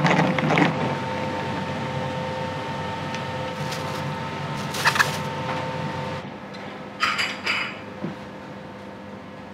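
Kitchen noise at a wok station: a steady roar from the gas wok burner and range, with a couple of sharp metal clinks, drops off about six seconds in. A short clatter of pots and dishes follows.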